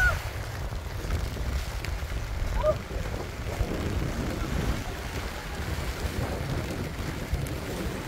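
Strong wind buffeting the microphone in a steady low rumble, with surf washing onto the beach behind it.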